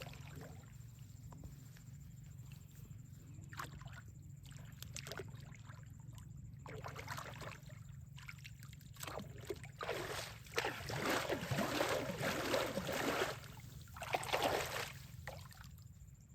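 Water splashing and sloshing in irregular bouts, the longest and loudest a few seconds past the middle, over a steady low background hum.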